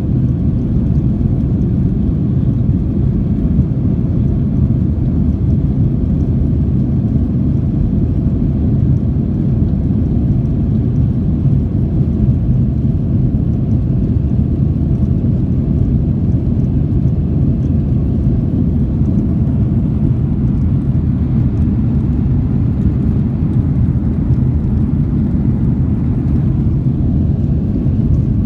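Boeing 737-900's CFM56 jet engines and rushing air, heard from inside the cabin as a steady, loud, low rumble during the climb after takeoff.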